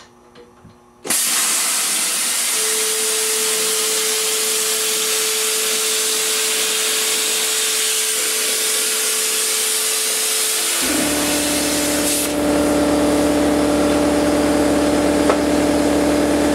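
Hypertherm Powermax 1000 plasma cutter cutting steel plate: the arc and air jet start with a sudden loud, steady hiss about a second in, with a thin steady whine. About ten seconds in the whine changes pitch and a low hum joins, and the hiss runs on.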